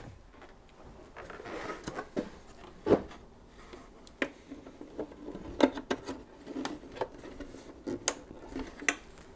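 Scattered clicks and knocks with a little rustling as hands handle a car's plastic tail light unit and its cabling. The two loudest knocks come about three and five and a half seconds in.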